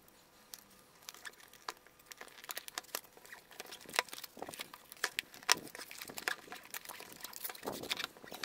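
Cardboard packaging being handled: the flap of a printed retail box opened and a plain brown cardboard inner box slid out onto a table, with irregular scrapes, taps and crinkles.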